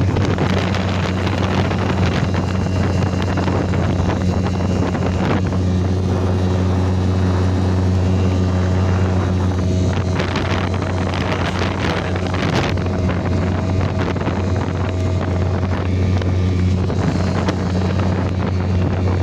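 Grouper 335W boat motor running steadily under load into a headwind, a constant low hum with its overtones. Wind gusts buffet the microphone over it.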